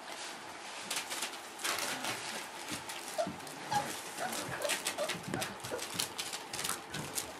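Four-week-old Boerboel puppies walking over newspaper, the paper rustling and crinkling under their paws, with a few short, high whimpers from a pup in the middle.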